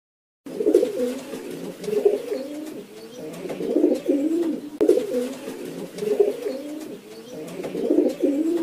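Pigeon cooing: low, warbling coos in phrases, the same cooing sequence heard twice, starting suddenly about half a second in.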